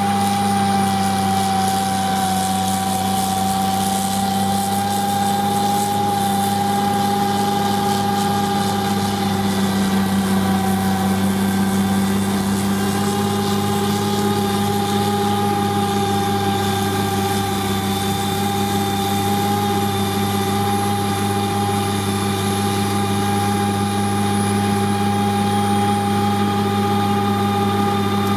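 CAT machine with a Contant snowblower running steadily under load, a constant engine drone with a steady whine above it while the auger chews through a snowbank.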